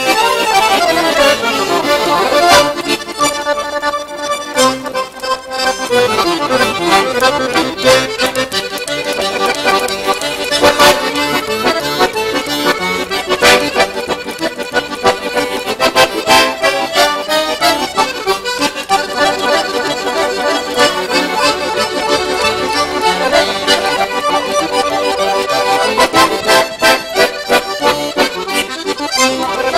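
Two piano accordions playing a duet, with fast runs of notes.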